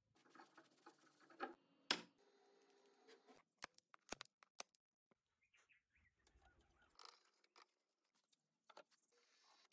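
Faint, scattered clicks and knocks from hand work with tools and parts, with a few sharper snaps among them, over near silence.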